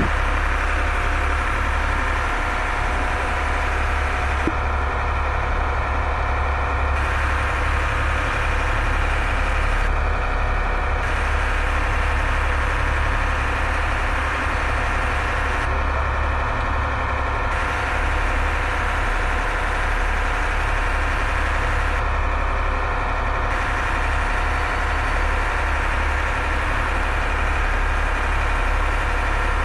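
A fishing boat's engine running steadily, heard from inside the wheelhouse as a low, unbroken drone.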